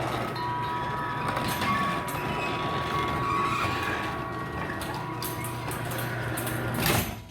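Sectional garage door travelling on its opener: a steady motor hum with the rollers rumbling and rattling in the tracks, stopping abruptly with a clack about seven seconds in.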